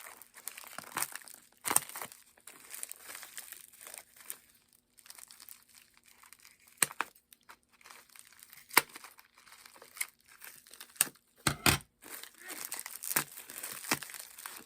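Packing material being unwrapped by hand: irregular crinkling and rustling with scattered sharp crackles and a few tearing sounds.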